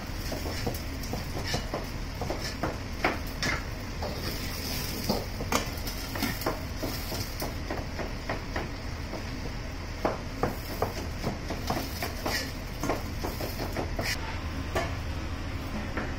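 Chinese cleaver chopping on a cutting board: sharp, irregular knocks, several in quick succession at times, over a steady low hum.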